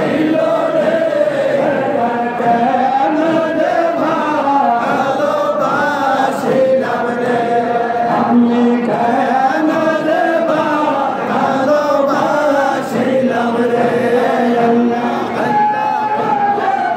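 Crowd of men chanting a Bengali Sufi zikr in chorus, a continuous melodic devotional chant with held, wavering notes.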